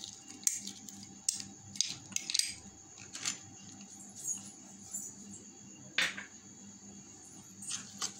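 A steel spoon clinking and scraping against a glass bowl and a dish as dry fruits are pushed into milk and stirred in: a scattering of light clinks and taps, one louder about six seconds in.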